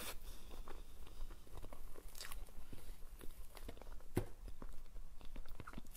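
Close-miked eating sounds: a mouthful of soft green cream cake being chewed, with irregular small wet clicks and smacks and one louder smack about four seconds in.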